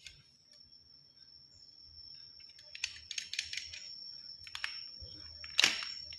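Clusters of light plastic clicks and crackles from toy guns and their packaging being handled, with the loudest crackle near the end, over a faint steady high whine.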